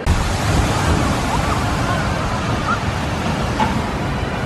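Wind rumbling steadily on the microphone over outdoor ambience, with a few faint high chirps.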